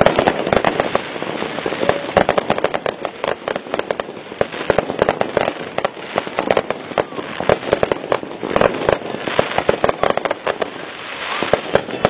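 Fireworks display: a dense, rapid string of crackles and pops from bursting aerial shells, with louder bangs among them.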